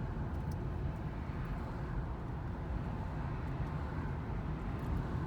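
Car on the move heard from inside the cabin: a steady low rumble of road and engine noise.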